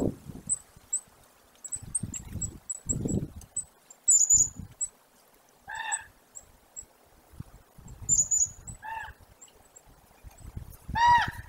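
Wild birds calling: small birds chirp at a very high pitch throughout, with a louder high call about four seconds in. Three short honking calls come at about six, nine and eleven seconds, the last the loudest. Low muffled thuds sound in the first few seconds.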